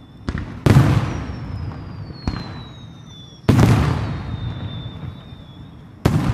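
Aerial firework shells bursting overhead: about five sharp booms, the loudest just under a second in and about three and a half seconds in, each trailing off in a long rolling echo.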